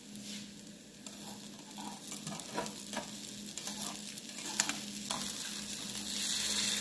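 Eggs with green onions sizzling in hot oil in a frying pan. From about halfway a metal spatula scrapes and taps against the pan several times as it works under the eggs. The sizzle grows louder toward the end.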